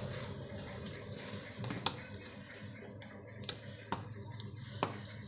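Scattered light clicks and taps of hands and a tool working on a laptop's plastic bottom casing while it is being opened, about five sharper clicks spread irregularly.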